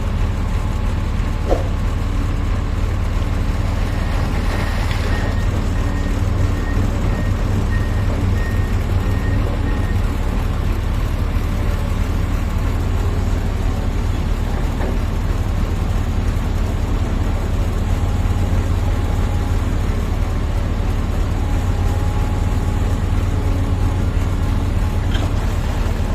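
Large Komatsu mining excavator's diesel engine running under load with a steady, heavy low rumble. A repeated high-pitched beeping, like a machine warning alarm, sounds from about five to ten seconds in.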